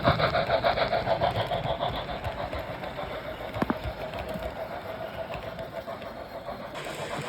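Märklin H0 model train, a class 05 steam locomotive with three coaches, running on the track with a fast, even rhythmic clatter that fades through the middle and builds again near the end, with a single sharp click about halfway through.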